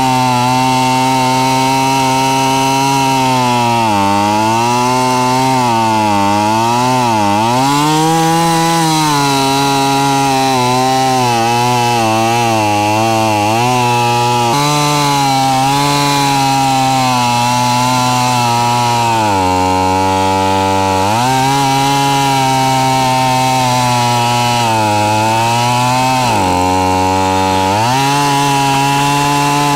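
Small two-stroke chainsaw running at full throttle while cutting through a log, its engine note dipping in pitch as it bogs under load several times: a few seconds in, about two-thirds through, and again near the end. The saw is running on straight pump gasoline with no two-stroke oil mixed in and no air filter.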